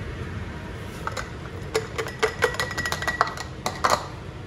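Utensil clinking and tapping against glass canning jars and the pot while chunky pickle mixture is scooped into the jars: an irregular run of small knocks for about three seconds, with a brief glassy ring in the middle.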